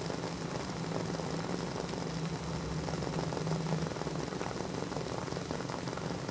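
Wooden wick of a WoodWick candle burning and crackling continuously with many small rapid pops, like a tiny fireplace, over a low steady hum.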